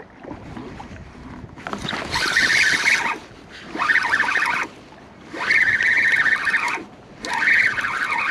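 Fishing reel cranked in four bursts of about a second each with short pauses between, reeling in a hooked fish.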